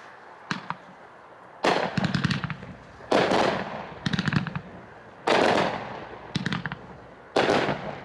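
Hot Shot Eternity 500-gram firework cake firing: a series of sharp bangs every second or two as shells burst overhead, several of them trailed by a rapid crackle.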